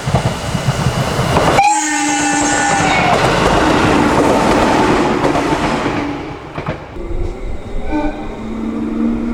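JR 211 series electric multiple unit sounding its air horn, a blast that starts suddenly about a second and a half in and holds for a couple of seconds. It comes over loud rail and running noise from the passing train, which dies down about six seconds in. A shorter horn sound follows near the end.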